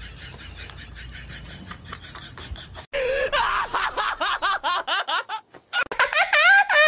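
A dog screaming in a fast run of short yelps that rise and fall in pitch, starting about three seconds in, the cries of a dog in distress at being restrained. Near the end a cat gives loud, rising meows.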